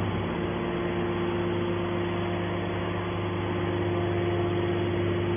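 Hydraulic scrap baler's power unit running with a steady machine hum of constant low tones over a mechanical noise haze.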